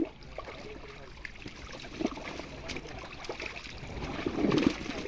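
Pond water splashing and trickling as fishermen work a net, with a louder splash about four seconds in.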